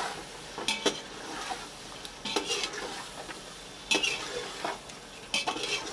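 Spoon stirring chicken and spices frying in a pot, clattering against the pot about every one and a half seconds over a low sizzle.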